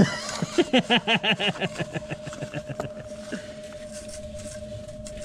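A man laughing in a quick run of repeated bursts for about a second and a half, over a steady hum.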